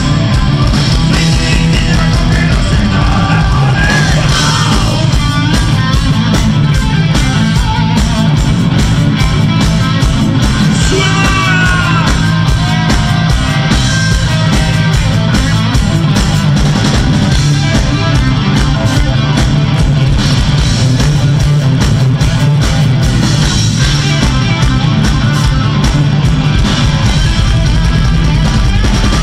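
Rock band playing loudly live through a PA: electric guitars, bass guitar and drum kit with a steady beat.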